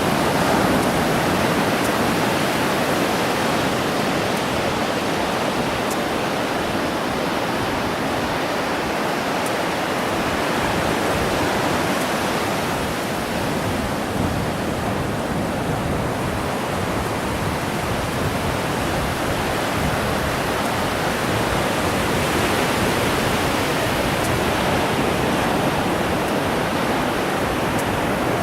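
Ocean surf breaking along the beach: a steady, even wash of noise.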